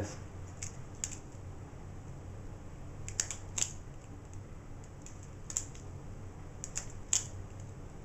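Balisong (butterfly knife) handles clicking and clacking against each other as the knife is flipped open and closed. About a dozen sharp metallic clicks at irregular intervals, some in quick pairs.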